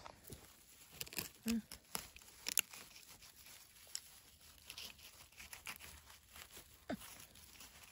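Dry grass and leaf litter crackling and rustling, with scattered clicks and scrapes as a knife is worked into dry soil around a mushroom; the sharpest click comes about two and a half seconds in.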